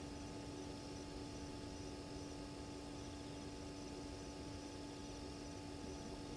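Steady background hiss with a constant low electrical hum from the camera's microphone; no distinct animal sound stands out.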